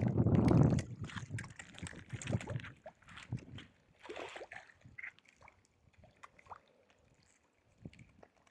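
Water sloshing and splashing, loudest in the first second, then thinning to scattered small splashes and clicks.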